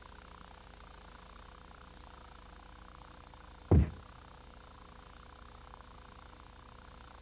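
A single short, heavy low thump a little past halfway, over a steady faint hum and hiss.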